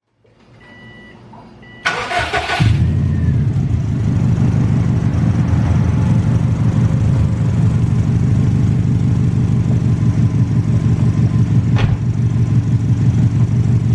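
Subaru flat-four engine started: a couple of short beeps, a brief crank, then it catches and idles steadily with a fast, even pulsing exhaust note. The owner identifies this idle sound as an exhaust leak at the donut-gasket joint where the catalytic converter meets the cat-back.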